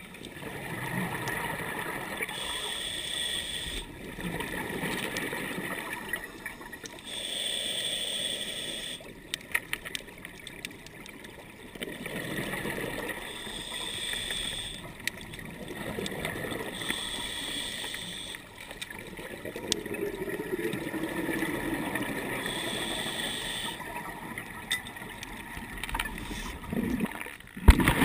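Scuba diver breathing through a regulator underwater: a short hissing inhale about every five seconds, alternating with the gurgle of exhaled bubbles. A sharp knock comes at the very end.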